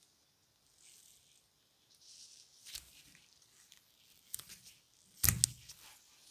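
Thread being drawn through the punched holes of a leather grip while it is hand-stitched, short rasping pulls with a few sharp clicks, the loudest a little past five seconds in.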